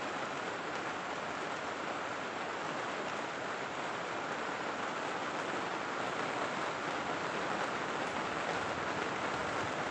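Heavy rain falling on the plastic sheeting of a greenhouse roof, a steady, even hiss.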